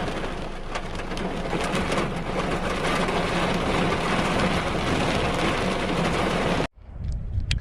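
Rain mixed with hail striking close to the microphone: a dense hiss full of sharp ticks. It cuts off abruptly near the end, followed by a low rumble of wind on the microphone.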